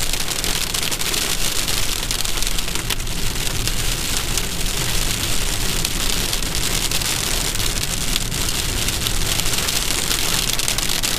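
Heavy rain pelting the car's roof and windscreen, heard from inside the car as a steady, dense hiss dotted with countless tiny drop impacts.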